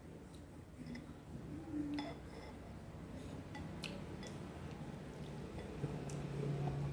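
A metal spoon and wooden chopsticks clinking lightly against a ceramic bowl of noodle soup as it is eaten, a few scattered taps. A low steady hum comes in near the end.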